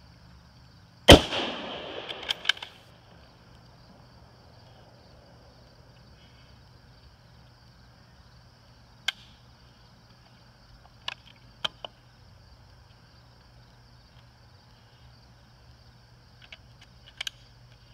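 A single .308 rifle shot from a Ruger Gunsite Scout bolt-action rifle about a second in, with a reverberating tail that dies away over about a second and a half. Later come a few faint sharp clicks from the rifle being handled.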